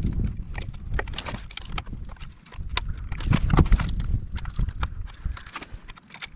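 Irregular clicks and knocks of hand work on a breaker panel: tools, breakers and wires being handled and fitted, over a low rumble.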